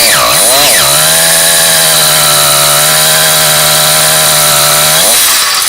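Small two-stroke motorized-bicycle engine built on a Super Rat bottom end, revving up and down, then held at a steady high rev for about four seconds before the revs drop near the end.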